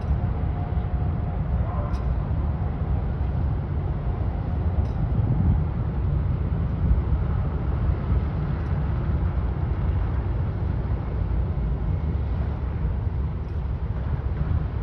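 Car ferry's engines giving a steady low rumble as the ship berths.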